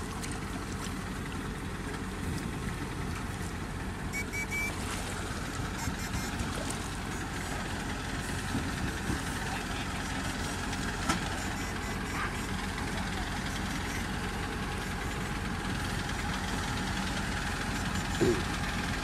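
An engine running steadily, with a fast, even knock underneath.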